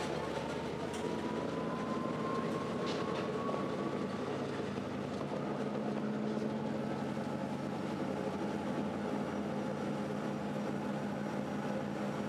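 Passenger boat's engines running steadily with a low hum, a thin whine rising in pitch over the first four seconds and a deeper steady tone setting in about five seconds in, over a steady rush of noise.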